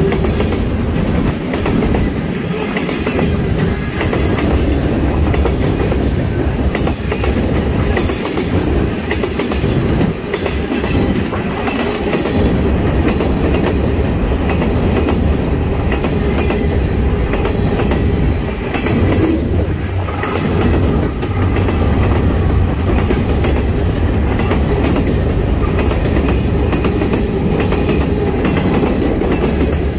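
Freight train cars rolling past, a continuous rumble with the wheels clicking over rail joints.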